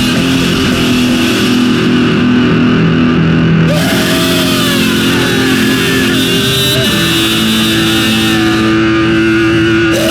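Lo-fi black metal: heavily distorted guitar holding sustained chords over a dense wash of noise, moving to a new chord about four seconds in and again near seven seconds.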